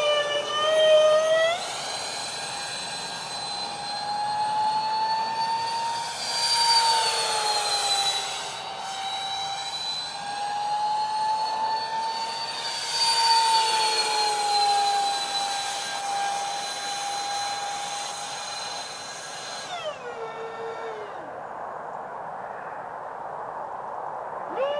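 Twin electric ducted fans of a Freewing Su-35 model jet whining in flight, the pitch rising and falling gently with throttle and passes. About twenty seconds in the whine drops sharply as the throttle comes back, staying low until it rises again near the end.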